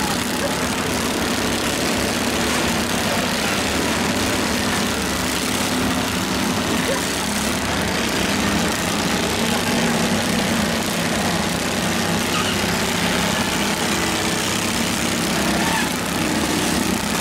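Several garden tractor and riding mower engines running together as the tractors drive around, a steady overlapping engine din with crowd noise behind.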